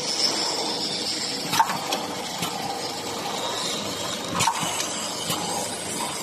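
Automatic sunshade-net edging sewing machine running steadily, its sewing head stitching along the net's edge, with a few sharp clacks.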